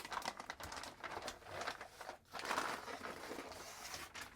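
Plastic packaging crinkling and rustling in irregular bursts as a motherboard is unwrapped by hand.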